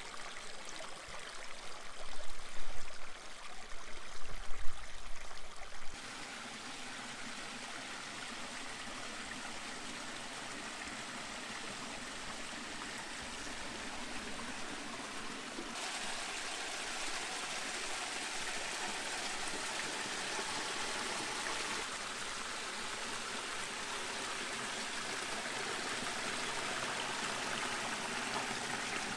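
Small mountain stream trickling and splashing between granite boulders, a steady rush of water that gets louder and brighter about six seconds in and again about halfway through. In the first few seconds low rumbling bumps stand out above the water.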